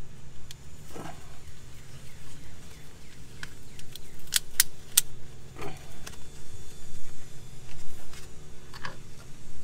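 Ratchet strap being worked by hand: the metal ratchet buckle and hook rattle and click as the webbing is pulled through, with a quick run of sharp clicks about halfway. A steady low hum runs underneath.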